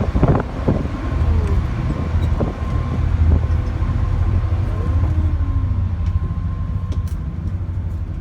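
Steady low engine rumble of a vehicle ferry underway, with a faint steady whine above it.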